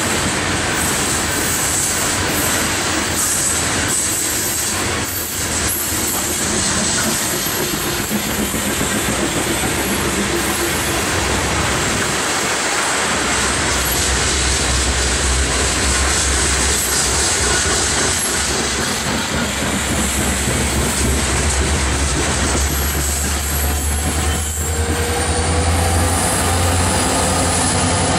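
Freight train of coal hopper cars rolling steadily past, steel wheels running and clicking over the rail. From about halfway a deep diesel engine drone builds, and near the end the train's mid-train helper locomotives, an EMD SD70ACe and SD70MAC with two-stroke 16-cylinder engines, draw level and pass.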